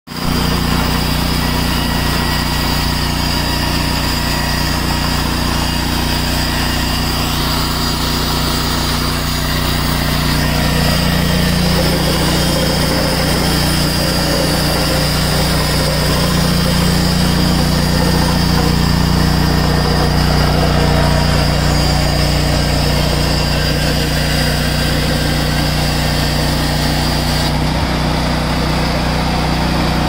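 Gasoline engine of an HFE30 Homesteader portable band sawmill running steadily while the band blade cuts through red oak. The hiss above the engine drops away near the end.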